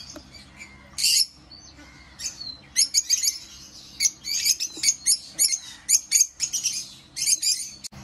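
Fischer's lovebirds chirping: many short, sharp, high-pitched calls, one loud call about a second in, then a dense run of rapid chirps from about three seconds until near the end.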